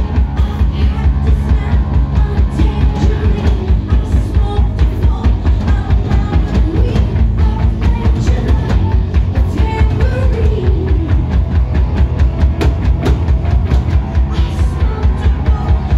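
A rock band playing live: electric guitars, bass and a drum kit keeping a fast, steady beat, with a singer's voice over the top.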